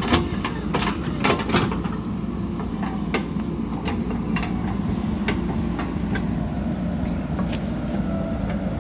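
JCB 3DX backhoe loader's diesel engine running steadily, with a run of sharp metal clanks and knocks through the first few seconds and one more near the end.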